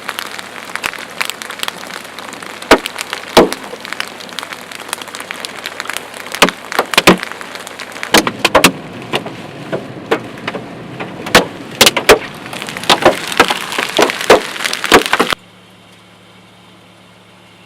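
Large hailstones, up to about 3 inches across, pounding on a vehicle, heard from inside the cabin: a steady patter with frequent loud, irregular bangs from the biggest stones. About 15 seconds in it cuts off suddenly, leaving a low steady vehicle hum.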